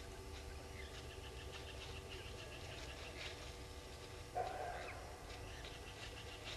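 Wild birds calling: a quick run of short, high notes for about two seconds, then one louder, lower animal call a little past the middle, over a steady low hum.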